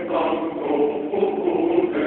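Several voices chanting together, overlapping and continuous.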